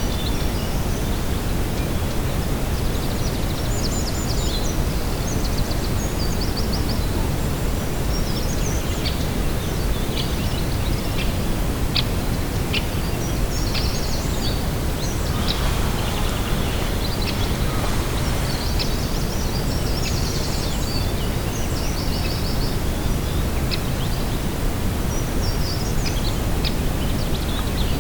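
Outdoor ambience of steady, low wind noise, with small birds chirping and giving quick trills on and off throughout.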